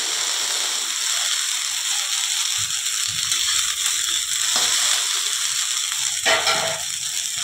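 Chopped okra sizzling in hot oil in a kadhai while a metal spatula stirs it, scraping against the pan, with a louder scrape about six seconds in.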